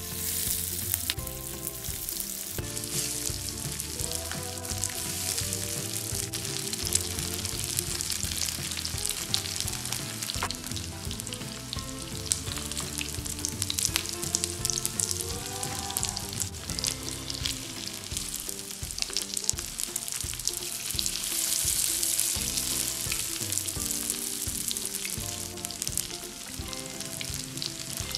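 Breaded cutlets shallow-frying in hot oil in a pan, with a steady sizzle.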